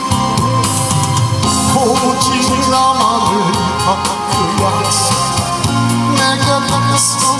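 Amplified backing music of a Korean song, with a steady drum beat, held keyboard chords and a wavering melody line, between the sung lines.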